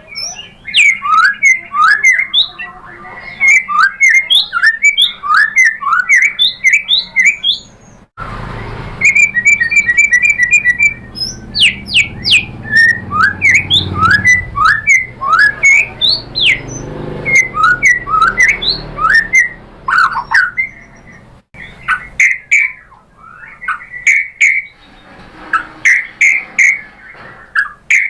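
White-rumped shama (murai batu) singing a fast, loud series of whistled notes that slide up and down. There is a quick repeated trill of short notes about nine to eleven seconds in. The song breaks off abruptly about eight and about twenty-one seconds in.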